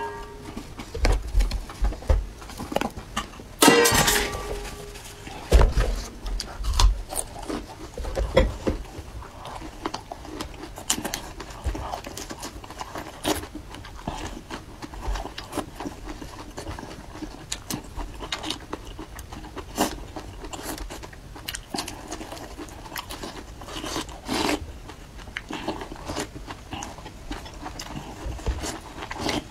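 Close-up eating sounds: sipping and slurping chili oil and chopped chillies from a ceramic bowl, with chopsticks and a spoon clicking and scraping against the bowl in scattered short knocks.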